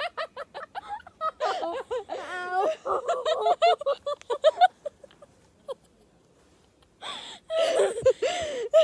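Girls laughing and giggling in quick pulses, falling quiet for a couple of seconds past the middle, then laughing loudly again near the end.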